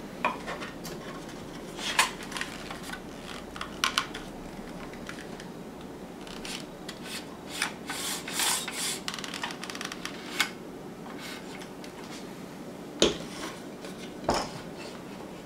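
Jorgensen miter box and its hand saw being handled: scattered clicks and knocks of the saw and its guides, with a short run of scratchy rubbing strokes of the blade on the wood about eight seconds in.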